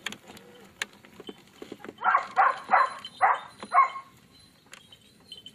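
A dog barking: a quick run of five barks about two seconds in.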